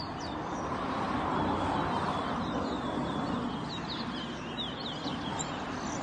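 Caged towa-towa seed finches singing in a singing race: bursts of quick, high, falling chirps, thickest in the middle, over a steady noisy background.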